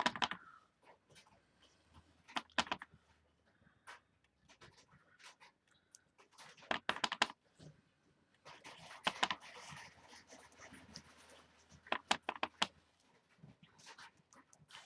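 Clear acrylic stamp block being tapped on an ink pad and pressed onto cardstock: scattered clicks and taps in small clusters, with a few seconds of soft rustling about halfway through.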